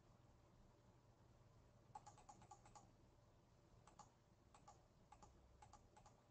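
Faint computer keyboard typing over near silence: a quick run of keystrokes about two seconds in, then scattered single keys.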